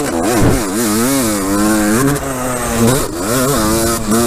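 Yamaha YZ250's single-cylinder two-stroke engine revving up and down under riding, its pitch climbing, holding and dropping several times.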